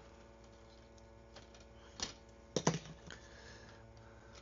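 Hard plastic toy parts clicking and knocking together as they are handled and fitted, a few sharp clicks with the loudest a quick double click about two and a half seconds in.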